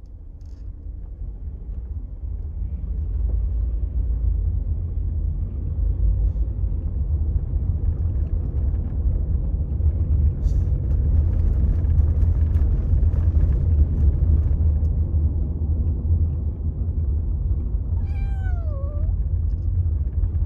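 A kitten meows once near the end, a single call that falls in pitch, over a steady low rumble.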